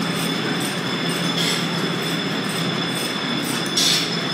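Belt-driven line-shaft machinery with a large wooden pulley running: a steady mechanical rumble and hum with a thin high whine. A brief hiss comes twice, about two and a half seconds apart.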